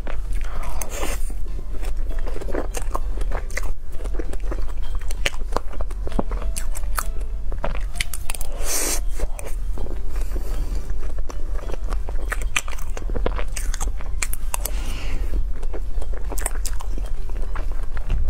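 Chewing and wet mouth sounds of eating soft strawberry cream cake, with many sharp clicks of a metal spoon against its plastic box.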